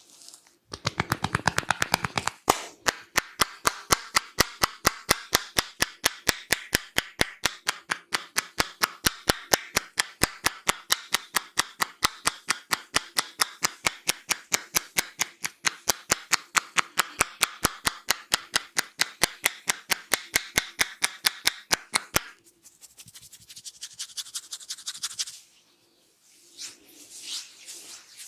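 Hands slapping and tapping a head in a barber's percussive head massage: a long run of sharp, evenly paced slaps, about four or five a second and quicker at first. They stop suddenly about three-quarters of the way through, and softer rubbing of hands on hair and skin follows.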